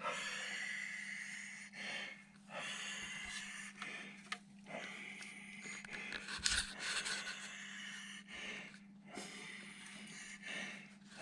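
A person breathing close to the microphone, a breath every second or so, over a steady low electrical hum.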